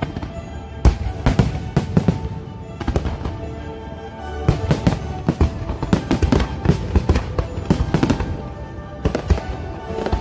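Fireworks going off, with many bangs in quick succession, over the show's music.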